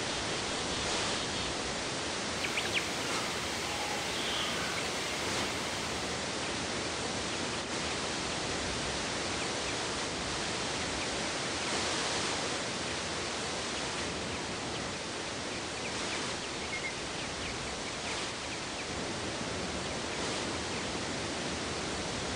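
Steady rushing noise outdoors, with a few faint high chirps now and then.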